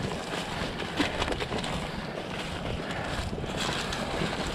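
Dry soybean stalks and pods rustling and crackling in quick, irregular clicks as someone pushes through a standing bean field, with wind buffeting the microphone.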